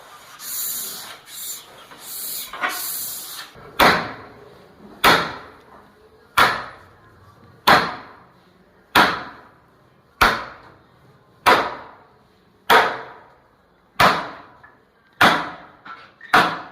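A few rasping strokes of sanding on wood, then a steady run of sharp wooden knocks, about one every 1.25 seconds, eleven in all, each ringing briefly.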